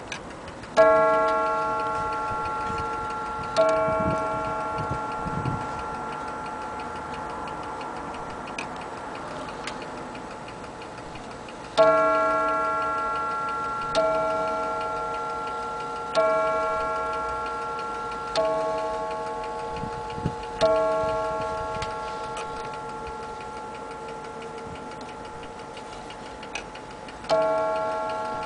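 German HAS (Hamburg-Amerikanische Uhrenfabrik) mantel clock striking, each blow ringing with several tones and dying away slowly. One strike comes about a second in and another about three seconds later. A run of five evenly spaced strikes about two seconds apart begins about twelve seconds in, and a single strike comes near the end, with the movement ticking faintly underneath.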